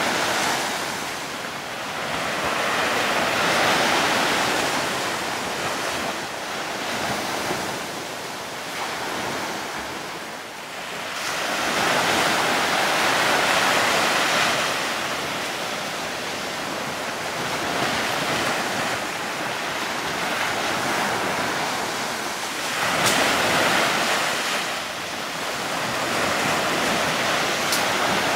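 A rush of wind and sea waves at the microphone, swelling and easing in long surges every several seconds, with a couple of faint clicks near the end.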